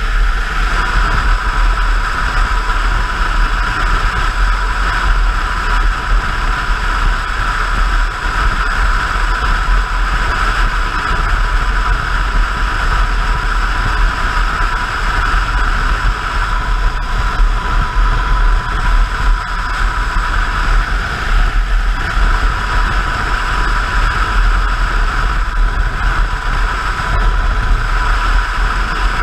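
Motorcycle cruising steadily at highway speed: a constant rush of wind noise over the engine's drone, with low wind buffeting on the microphone.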